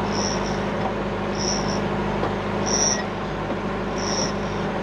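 A sailboat's engine running steadily under way, with a short high chirp repeating about every second and a quarter.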